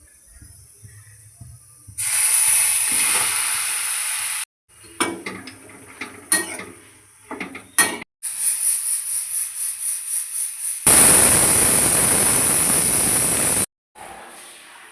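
Cooking sounds in quick cuts: hissing and sizzling in a pan, with metal utensils clicking and knocking against cookware, and a loud sizzling hiss near the end.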